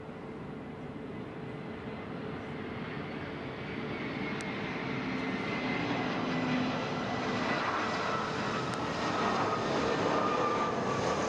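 Airbus A320-family jet airliner on approach to land, its engine noise growing steadily louder as it nears, with a high whine that slides slowly down in pitch.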